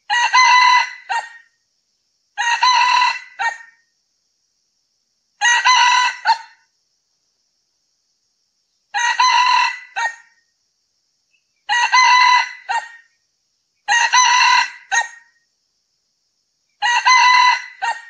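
Male red junglefowl crowing repeatedly: seven short crows, each clipped off by a brief separate final note, two to three seconds apart.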